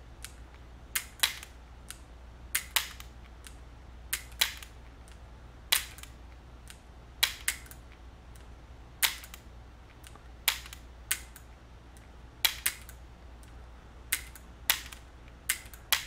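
An air pistol being dry-fired again and again with no pellet or CO2, about ten trigger pulls roughly one and a half seconds apart. Each is a sharp mechanical click, often followed within a fraction of a second by a second, lighter click.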